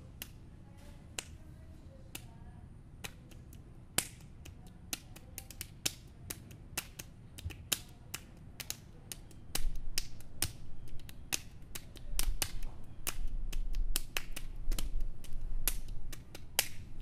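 Sharp clicks and taps in a quick, uneven rhythm: improvised rhythm tapped out against a steady beat. From about ten seconds in, a low rumbling noise comes and goes under the clicks.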